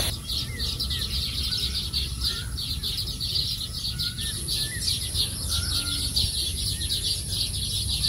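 Small birds chirping rapidly and continuously, about five chirps a second, with a few short whistled notes mixed in.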